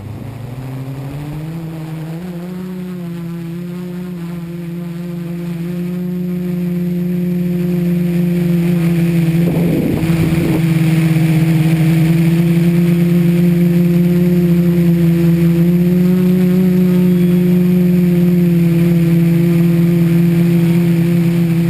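LotusRC T380 quadcopter's four brushless outrunner motors and propellers, heard close up from the onboard camera. The hum rises in pitch over the first couple of seconds as it lifts off the grass, then holds steady and grows louder as it climbs, wavering briefly about ten seconds in.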